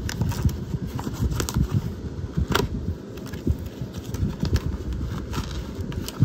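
A cardboard box being handled and opened by hand, with wooden kit panels sliding inside it: irregular rustling, scraping and light knocks, and one sharp click about two and a half seconds in.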